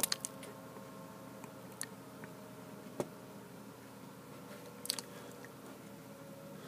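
A few scattered, sharp computer mouse clicks over a faint steady hum.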